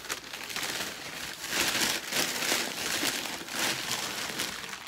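Thin plastic shopping bag crinkling and rustling as hands rummage through it. It gets louder from about a second and a half in.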